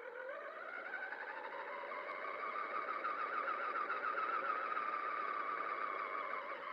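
Traxxas Summit RC truck's electric drive whining as it speeds up: the pitch rises over the first two seconds, holds high with a slight warble, and drops again near the end.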